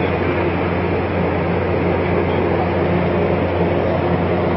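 Steady drone of ship machinery heard from on deck: an unbroken low hum with a constant rushing noise over it.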